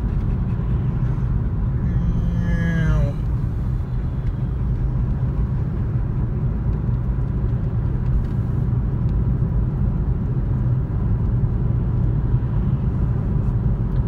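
Steady road noise inside a moving car's cabin: tyres on wet pavement and the engine running. A short falling whine-like tone comes about two seconds in.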